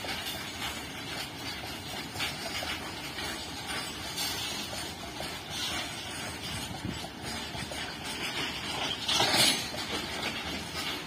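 Indian Railways freight train of open-top wagons rolling past: a steady rumble of wheels on rail with light clicks, and a louder harsh rasp lasting about half a second around nine seconds in.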